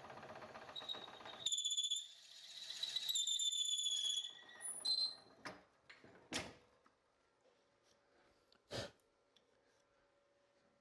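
Drill bit boring into an ash blank spinning on a wood lathe, fed from the tailstock: a rough cutting noise turns into a high-pitched squeal for about three seconds, then a shorter squeal. As the bit is withdrawn there are a few sharp knocks.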